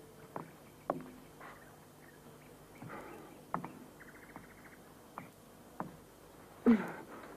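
Sparse knocks and footfalls in a quiet room, with a short rapid run of high ticks about four seconds in and a louder knock near the end.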